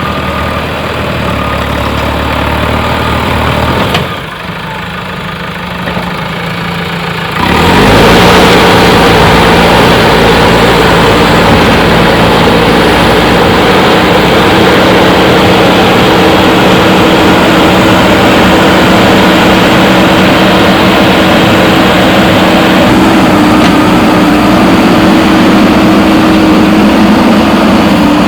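Backhoe loader's diesel engine running at idle, dropping briefly, then revving up sharply about seven seconds in and holding steady at high revs.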